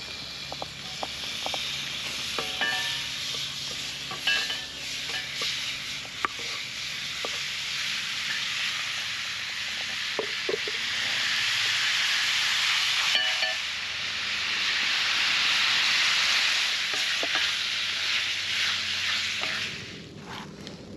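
Cubes of meat sizzling in hot oil in a metal frying pan over campfire coals, with a few sharp knocks of a wooden spoon against the pan as the meat is stirred. The sizzle swells louder in the middle and second half and drops off near the end.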